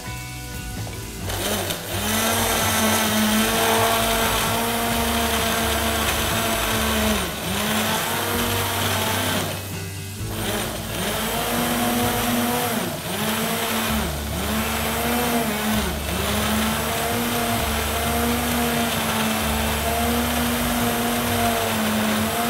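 Professional stick blender motor running in a pan of pea cream soup, puréeing it. Its pitch repeatedly sags under load and recovers. It cuts out briefly about ten seconds in, then runs on.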